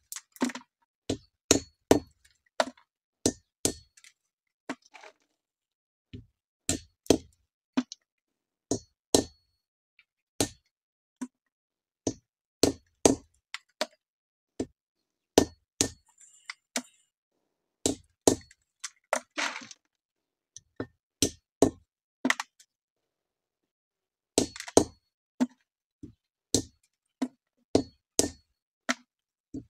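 Repeated sharp knocks as hard andız (Syrian juniper) berries are struck to crack them open, coming irregularly at about one or two a second, often in quick pairs, with a couple of short pauses.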